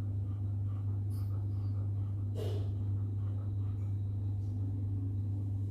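A steady low hum, with a short faint sound about two and a half seconds in.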